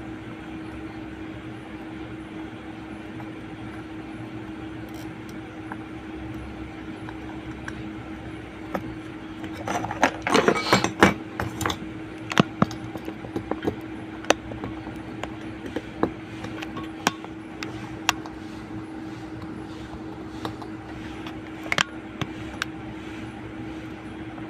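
Small metal tools clicking and tapping on a phone circuit board at a repair bench, in a quick flurry about ten seconds in and then as scattered single clicks, over a steady hum.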